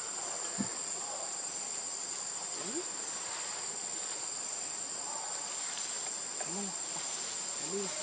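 Steady, high-pitched drone of forest insects, one unbroken tone. A soft knock sounds about half a second in, and a few faint short rising-and-falling calls come near the end.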